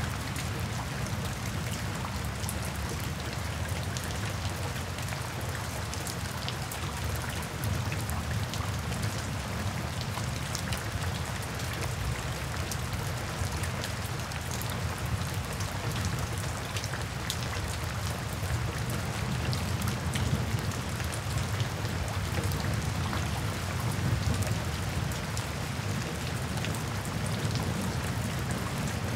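Steady rain falling on a porch roof, with scattered drops tapping and a low rumble underneath.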